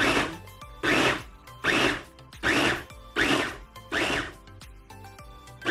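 Babymoov Nutribaby+ baby-food maker's blender pulsing in short bursts, six in a row a little under one a second, chopping steamed vegetables, salmon and pasta into a purée, then pausing for over a second near the end.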